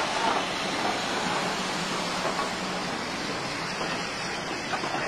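A steam-hauled broad-gauge goods train with an SGS 0-6-0 locomotive rolling past close by. Its wheels and running gear on the rails make a steady rushing noise as the locomotive and then its wagons go by.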